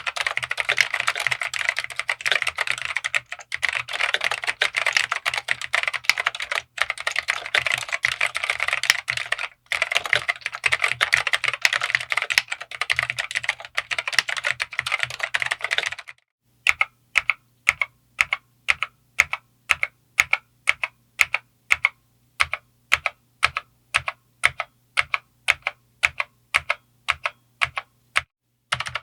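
Dell AT101W keyboard with Alps SKCM Black tactile switches being typed on quickly and continuously. About sixteen seconds in, the typing stops briefly and gives way to single keystrokes at a steady pace of about two or three a second.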